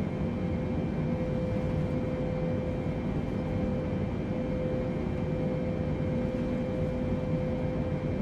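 Steady airliner cabin noise in flight: an even rush of engine and airflow with a constant mid-pitched hum running through it.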